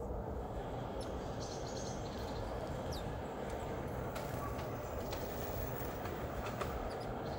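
A steady low background rumble, with faint, short high-pitched chirps and clicks scattered over it.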